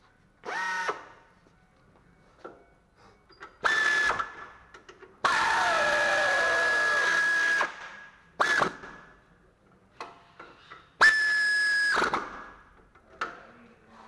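Power tool run in five short bursts of steady whirring, the longest about two seconds, with a pause of a few seconds between most bursts.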